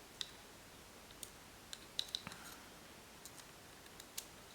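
Faint, scattered small clicks and taps from handling a Torx driver and folding-knife parts, at irregular intervals.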